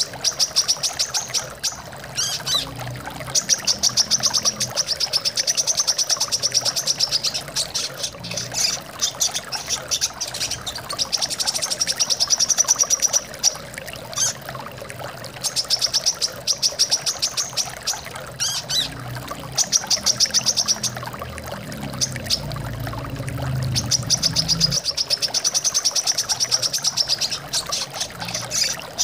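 Brown-throated sunbird song: repeated bouts of rapid, high, buzzing trills a second or two long, over a steady sound of flowing water.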